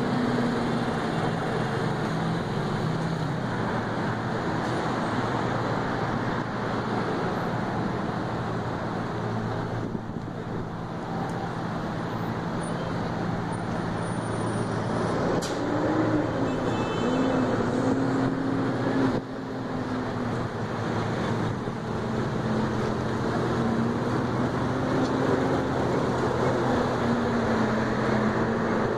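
Steady road traffic noise with vehicle engines running close by, a low droning hum that wavers slightly in pitch.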